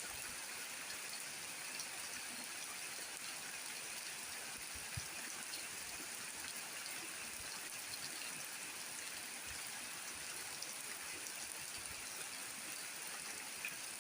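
Steady rain falling: an even hiss with faint scattered drips and ticks.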